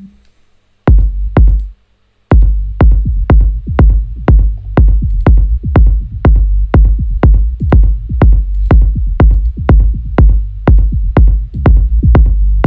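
Electronic sub-bass line from a Serum analog sine patch played back with the kick pattern. Each note opens with a short click and a falling pitch from a pitch envelope, and there is heavy low end throughout. The hits start about a second in, stop briefly, then run on at about two a second.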